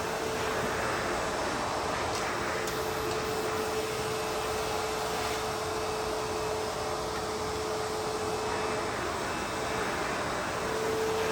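ProTeam Super Coach backpack vacuum running steadily, a constant rush of suction with a steady motor whine, and a couple of faint ticks about two seconds in.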